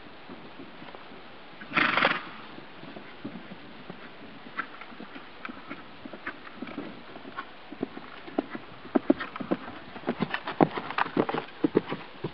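Hoofbeats of a ridden Quarter Horse mare on grass, faint at first, then louder and more frequent near the end as the horse comes close. A short loud burst of noise about two seconds in.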